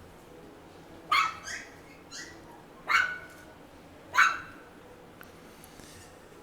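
A small dog barking: about five short, high-pitched barks spread over a few seconds, the first, third and last loudest.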